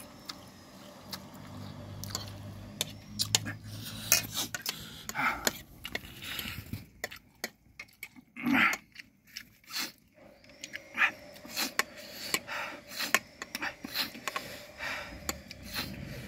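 Close-up eating sounds: a metal fork and spoon clicking and scraping on a ceramic plate, with noodle slurping and chewing. Several loud sharp breaths come through the mouth and nose, the loudest about eight seconds in, a reaction to the heat of very spicy noodles.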